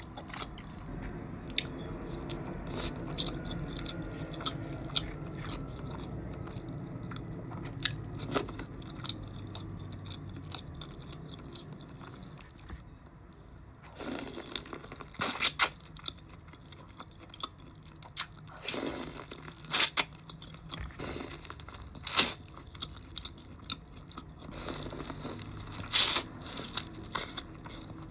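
A person eating a seafood boil: chewing, with sharp crunches and cracks that come thicker in the second half.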